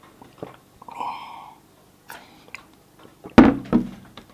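A man drinking from a glass mug, with a gulp about a second in. Two loud thumps about half a second apart follow near the end.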